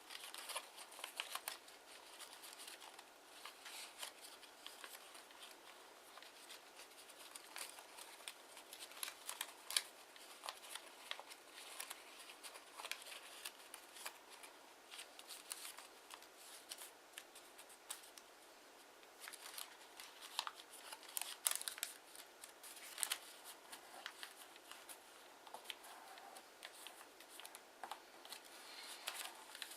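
Kraft origami paper being handled, folded and creased by hand: quiet, irregular crisp rustles and clicks, with a few sharper crackles.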